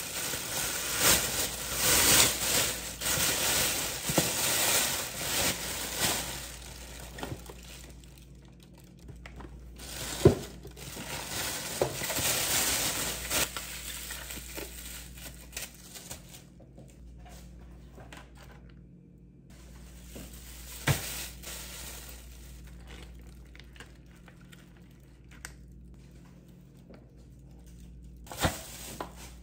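Thin plastic shopping bag crinkling and rustling loudly as it is untied and handled, then softer plastic rustling with three sharp single knocks of packages set down on the countertop.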